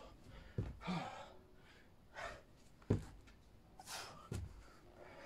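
A man breathing hard, with sharp gasping exhales, while doing burpees, with three dull thumps as his hands and feet hit the grass, the loudest about halfway through.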